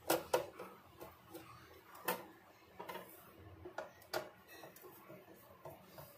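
Sharp clicks and small metallic taps of a screwdriver, screws and the metal casing being handled while the back cover of a plastic bag sealing machine is unscrewed. The loudest clicks come at the start, about two seconds in and about four seconds in, with fainter ticks between.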